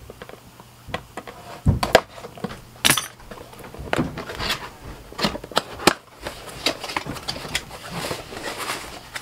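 A cardboard box being cut and opened by hand with a knife: scattered taps, clicks and scraping of cardboard, with a louder thump about two seconds in and rustling as the flaps are pulled open.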